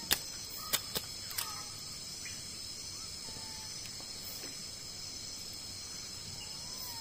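Steady high-pitched chorus of night insects, with a few sharp clicks and knocks in the first second and a half.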